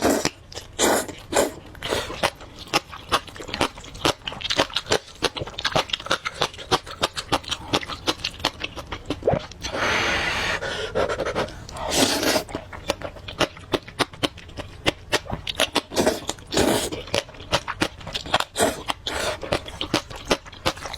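Close-miked eating of spicy fried rice noodles: rapid wet chewing and smacking clicks, with a longer slurp about halfway through and shorter slurps a little later.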